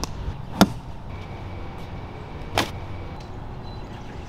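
A thrown apple swishing through the air twice. The first swish, about half a second in, is short, sharp and the loudest. The second, about two seconds later, is a little longer. Both sound over a steady background hiss.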